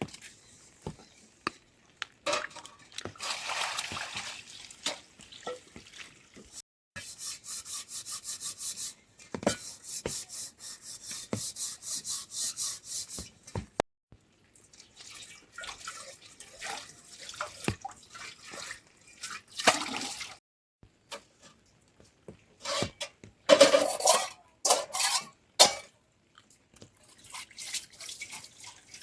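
Water splashing and trickling during hand washing or rinsing work, with a run of quick, even strokes at about five a second about a third of the way in, and louder irregular splashes near the end.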